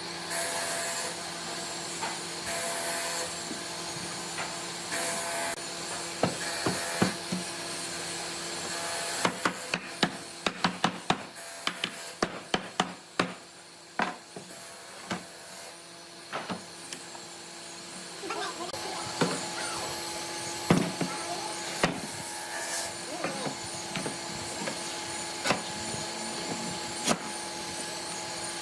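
Woodworking workshop sounds: sharp knocks and taps of wood and hand tools, a quick run of them in the middle, over a steady machine hum.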